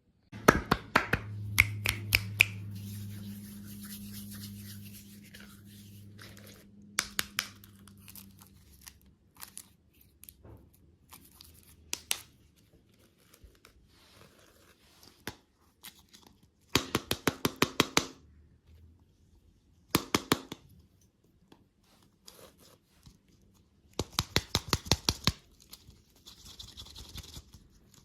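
Candy wrappers being handled and torn open: bursts of rapid crinkling clicks separated by pauses.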